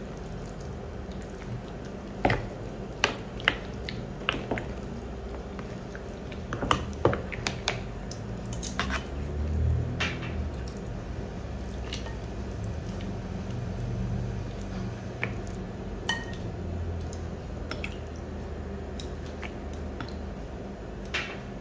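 Plastic tongs and spoons knocking and clicking against a glass mixing bowl, with wet squishing as raw chicken pieces are dropped into and turned through a thick spice paste. The clicks come irregularly, over a steady low hum.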